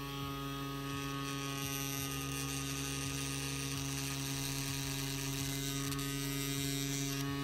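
Hummingbird Bronc V1 rotary tattoo pen, its Maxon motor running at a steady buzzing hum as the needles work into a practice silicone skin.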